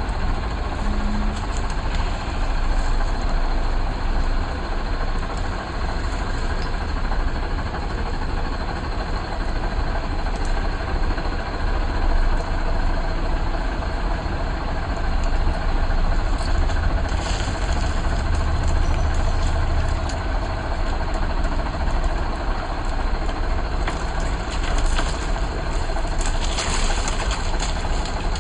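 A safari vehicle's engine running steadily, with continuous motor and road noise that is heaviest in the low end.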